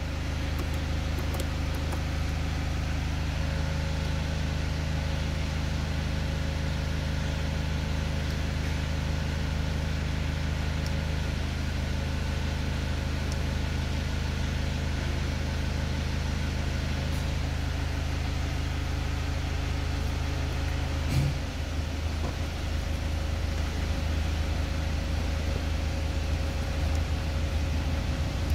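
SsangYong Actyon engine idling steadily, heard from inside the cabin. About three-quarters of the way through there is a sharp click, and after it the low hum turns rougher.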